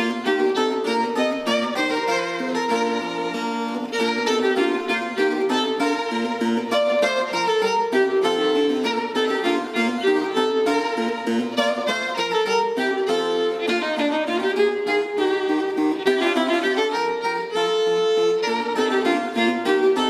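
Violin and spinet playing a piece together: the bowed violin line over the spinet's plucked, crisply attacked keyboard notes.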